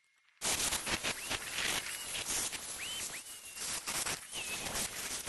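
Small birds chirping, a handful of short rising calls, over a continuous rough hiss that starts suddenly about half a second in.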